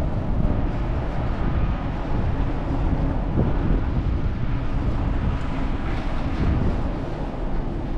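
Wind rumbling on the microphone: a steady, fluctuating low noise with no distinct events.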